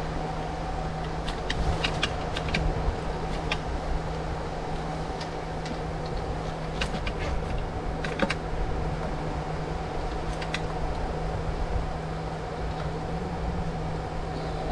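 Steady machine hum with a low drone and a fainter higher whine over it. Scattered light ticks and taps fall on top of the hum, mostly in the first half.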